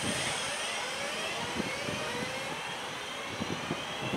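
Class 323 electric multiple unit moving slowly with its traction motors whining: several tones rise together in pitch as the train picks up speed. Scattered short knocks sound underneath.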